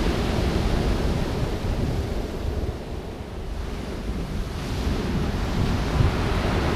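Surf breaking and washing on a pebble beach, with wind buffeting the microphone; the wash eases about midway and builds again as the next wave comes in.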